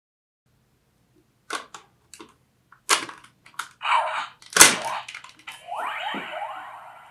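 Plastic clicks and knocks of an alien disc being taken off a Ben 10 Disc Ultimatrix toy and a new disc snapped on, starting about a second and a half in, with one loud snap about halfway. Near the end the toy's electronic sound effect starts: a steady hiss with rising sweeps.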